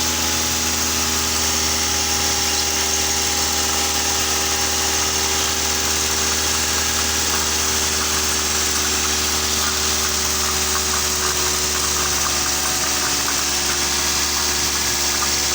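A 2006 Toyota Avanza's four-cylinder petrol engine idling steadily at an even pitch.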